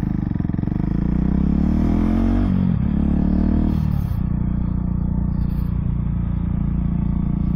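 Husqvarna 701's single-cylinder engine pulling through the gears: the pitch rises, drops at a shift about two and a half seconds in, rises again and drops at another shift near four seconds in, then holds steady at cruising speed.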